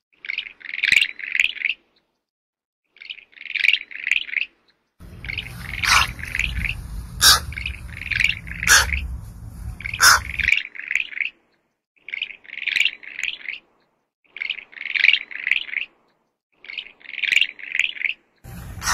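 Short phrases of four or five rapid, high-pitched chirps, repeated about ten times with abrupt silent gaps between them. A few sharp clicks come through, and a low rumble with hiss underlies the middle stretch.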